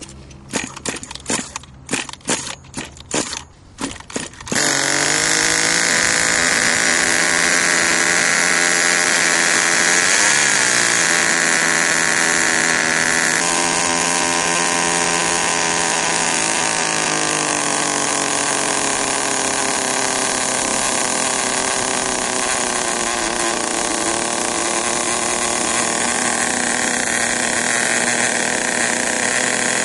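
A small glow-fuel nitro engine of an RC monster truck being pull-started with a rapid series of recoil pulls. It catches about four and a half seconds in and keeps running steadily with a high buzz, rising and falling briefly in pitch a few seconds after it catches. This is the brand-new engine's first start, at the beginning of break-in.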